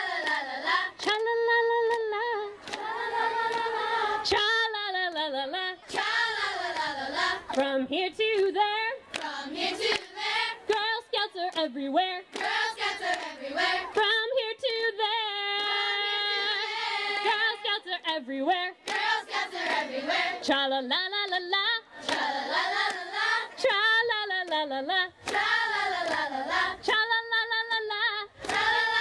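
A chorus of girls singing a cappella, led by a woman's voice, with hands clapping along. About halfway through, the voices hold one long note.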